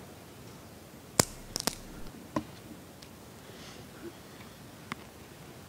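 Altar vessels (chalices and ciborium) clinking and knocking as they are handled on the altar: a handful of sharp clicks, the loudest about a second in, a quick pair just after, and a fainter one near the end.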